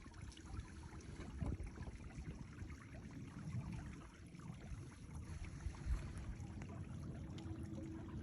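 Water sloshing and gurgling around a kayak, with a low uneven rumble and a couple of dull bumps, about one and a half and six seconds in.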